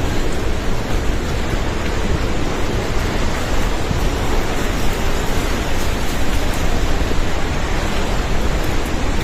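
Flash-flood river in spate, a torrent of floodwater rushing past in a loud, steady wash of noise.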